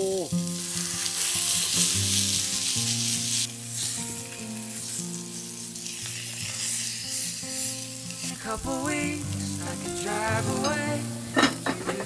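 Hamburger patties sizzling as they fry in a Lodge 8-inch cast-iron skillet on a wood stove, the sizzle heaviest in the first few seconds.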